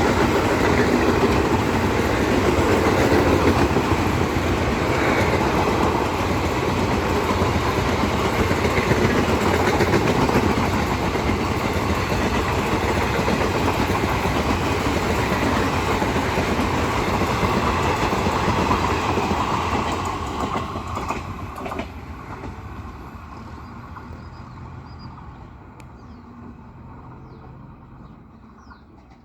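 Train of wagons rolling along the rails, loud and steady, then fading away from about twenty seconds in as the train moves off.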